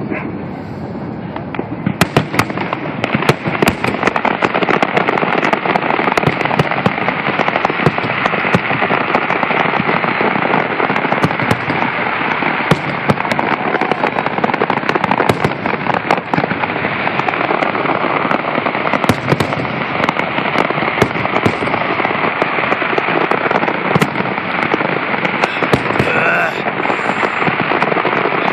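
Fireworks display in a dense barrage: aerial shells bursting with many sharp bangs in quick succession over a continuous wash of noise. The barrage picks up about two seconds in and keeps up without a break.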